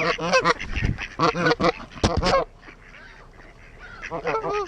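A flock of wild ducks and geese quacking and honking, many overlapping calls for the first two and a half seconds, then a brief lull before another burst of calls near the end.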